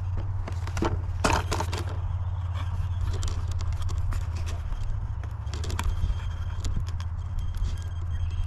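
Scattered clicks, taps and light scrapes from a foam RC airplane being handled and adjusted on a wooden bench, over a steady low rumble.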